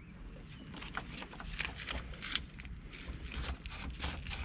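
Fine sandpaper rubbed by hand on a car battery terminal, making a run of short, irregular scratching strokes.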